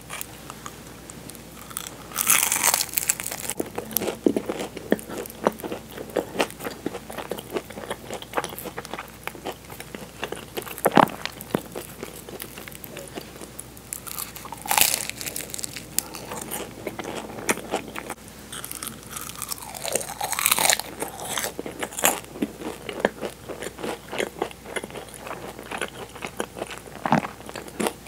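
Close-miked eating of Portuguese-style egg tarts: repeated bites with the flaky pastry shell crunching and crackling, and chewing between bites.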